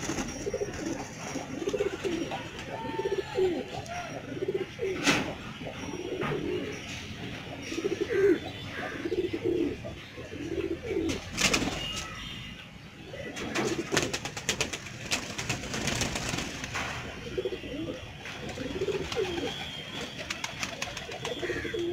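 Domestic pigeons cooing over and over, several birds calling in overlapping low rolling coos, with a few short sharp noises in between.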